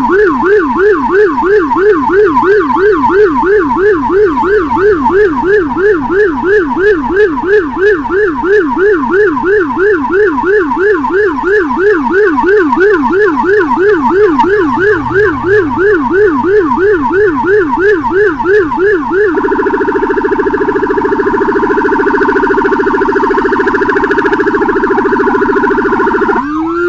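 Loud Whelen electronic siren on an escort motorcycle in a yelp pattern, sweeping up and down about three times a second. About 19 seconds in it switches to a much faster rapid warble, then gives a short rising sweep near the end as the yelp comes back.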